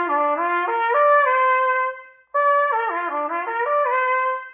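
Solo trumpet playing a short run of notes that steps down and climbs back to a held note, played twice with a brief break about two seconds in: one measure of a cornet etude being practised and repeated.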